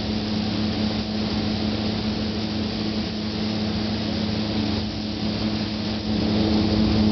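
Steady motor hum under an even hiss of air from spray-painting equipment, growing a little louder about six seconds in.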